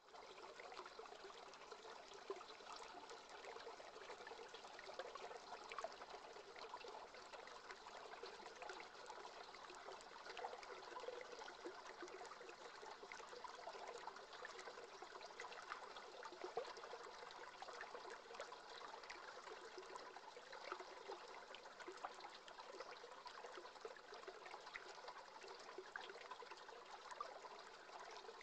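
Shallow river current flowing over riffles: a faint, steady wash of trickling, babbling water with small splashes throughout.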